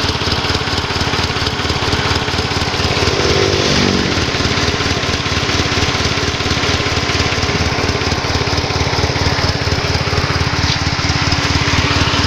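Vehicle engine idling steadily, with the newly fitted alternator drive belt running on its pulleys after the replacement.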